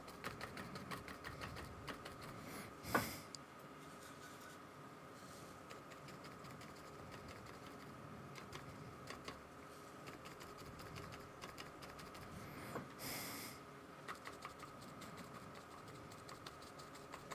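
Faint, quick tapping of a paintbrush dabbing acrylic paint onto sketchbook paper to form leaves, over a faint steady hum. A brief louder noise comes about three seconds in.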